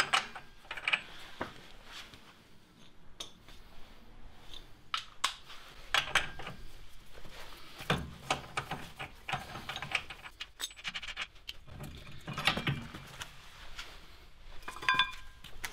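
Scattered metallic clinks and knocks of a 36 mm socket and breaker bar working on a car's rear hub nut, and the brake disc and hub being handled off the hub carrier. A few ringing metal clinks come near the end.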